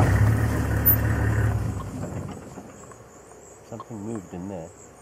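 Safari vehicle's engine running, then dying away about two seconds in, leaving a steady high insect trill. Near the end, a brief wavering call.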